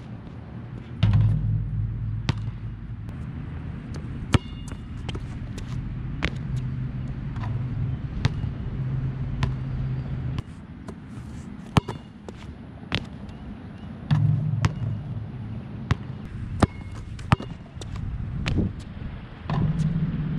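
Nike Jordan Hyper Grip 4P basketball bouncing, giving sharp single impacts at uneven intervals, under a low hum that comes and goes.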